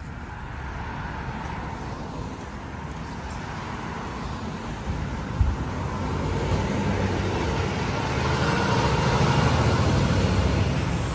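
Street traffic: a car driving past, its engine and tyre noise building slowly to a peak near the end and then easing off. A single short tap about five seconds in.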